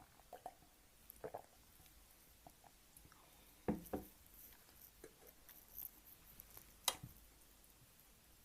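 Close-miked eating sounds of ramen: scattered soft, wet chewing noises, with two louder ones close together about four seconds in and a sharp click near seven seconds.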